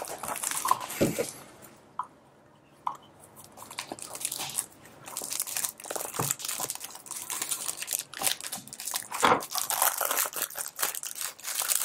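Clear plastic shrink-wrap on a perfume box crinkling and tearing as it is slit with a pocket knife and peeled off by hand, with a short quiet pause about two seconds in.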